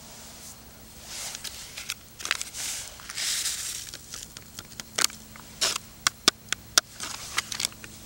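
Plastic instant-soup packet crinkling in the hands: rustling at first, then several short sharp crackles of the wrapper in the second half.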